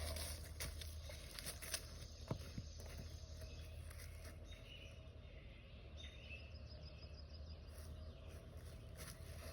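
Quiet outdoor background: a steady low rumble with a few faint clicks, and faint bird chirps about six seconds in.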